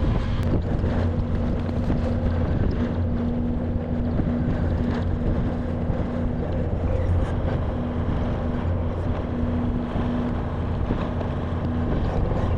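A farm machine's engine running steadily at a constant speed, a low hum that holds the same pitch throughout.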